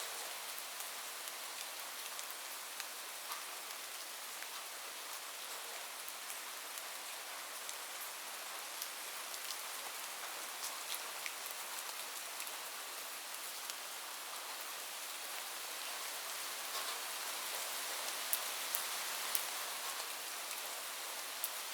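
Steady rain falling on a roof: an even hiss with many separate drops ticking through it. It grows a little heavier in the last few seconds.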